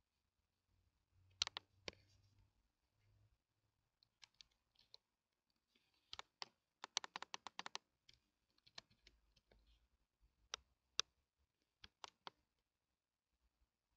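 Faint computer keyboard typing and mouse clicks: scattered single clicks, with a quick run of keystrokes about halfway through.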